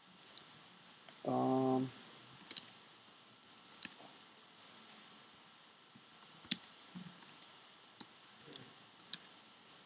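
Computer keyboard keys clicking in scattered runs as a shell command is typed. A brief low hum, the loudest sound, comes about a second in.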